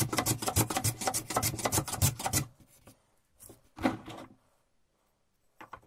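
Freshly sharpened Stanley No. 4½ hand plane taking shavings off padauk, sped up so the strokes come in a rapid swishing run of about eight a second. It stops about two and a half seconds in, followed by a couple of soft knocks.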